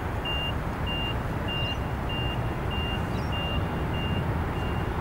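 Steady low rumble of a landing Boeing 777-200LR's jet engines as it touches down. Over it, a vehicle's reversing alarm gives a short high beep about every 0.6 s, growing fainter near the end.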